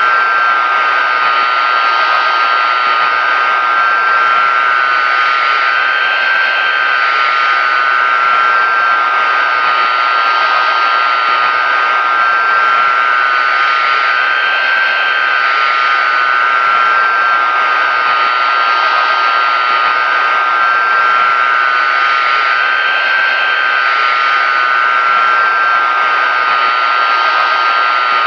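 Pratt & Whitney JT9D-7 turbofan of a Boeing 747-200 running steadily: a loud, even jet rush with a strong whining tone made of several close pitches. It swells faintly every few seconds without changing pitch.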